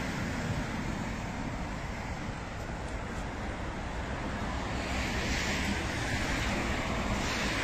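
Outdoor street noise: a steady rumble of road traffic, with a hiss that grows louder about five seconds in as traffic passes closer.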